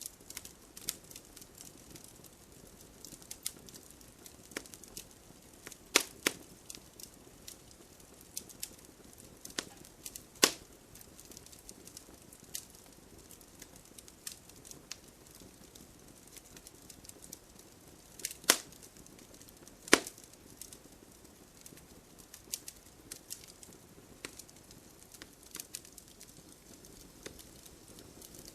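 Wood fire in a fireplace crackling: scattered small clicks over a faint hiss, with a few loud sharp pops, the biggest about six, ten, eighteen and twenty seconds in.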